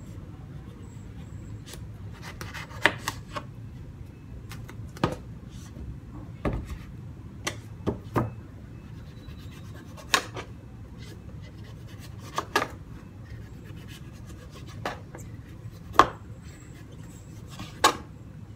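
Kitchen knife peeling and slicing a firm, not very ripe mango on a plastic cutting board: irregular sharp knocks of the blade meeting the board, about fifteen of them, the loudest about 16 seconds in, with soft scraping between, over a low steady hum.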